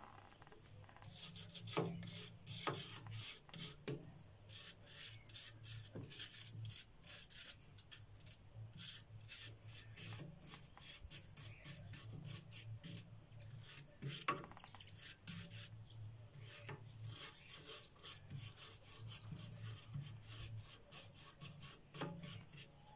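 Hand-sanding a rusty metal wire flower stand: quick scratchy back-and-forth rubbing strokes, several a second, with brief pauses.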